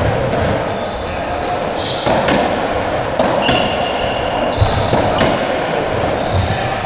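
Racketball rally on a squash court: the ball is struck by rackets and hits the walls and floor in a string of sharp cracks, while shoes give short squeaks on the wooden floor.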